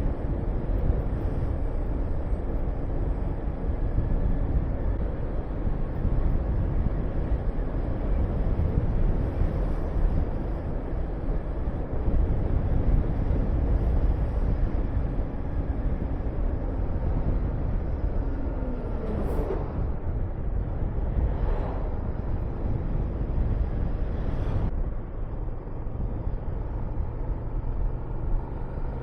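Honda VTR250's 250 cc V-twin engine running under way, under heavy wind rush on the microphone. The engine note falls about two-thirds of the way through, and the sound gets slightly quieter near the end.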